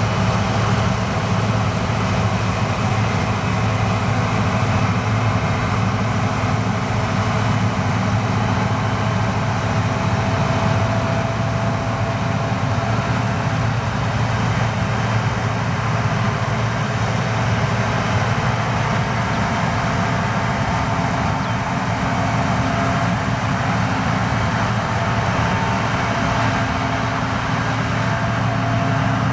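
Gleaner R65 combine harvester running steadily under load: a constant low diesel hum over the even rush of the machine working, with a faint higher whine that comes and goes.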